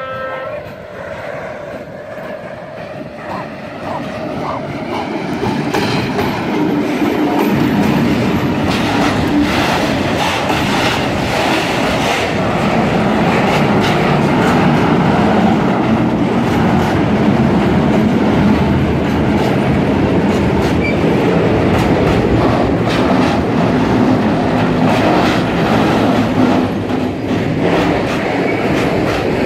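A horn blast from Loko trans diesel locomotive 753 784-8 ends just at the start. The locomotive then comes closer and passes under power, hauling a loaded freight train up the grade toward the station, and the sound grows louder over the first several seconds. After that come loaded tank wagons rolling by, with steady clickety-clack from the wheels on the rail joints and some faint wheel squeal.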